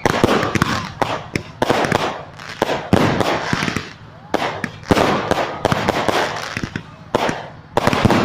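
Fireworks and firecrackers going off in rapid, overlapping volleys: many sharp bangs and crackles in surges about every second, with hissing between them.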